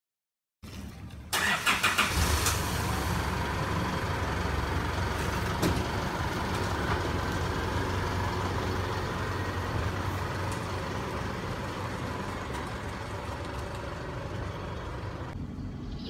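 An SUV's engine starting about a second in, then idling steadily.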